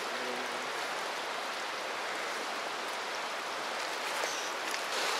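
Creek water flowing over rocks, a steady rushing hiss that gets a little louder near the end.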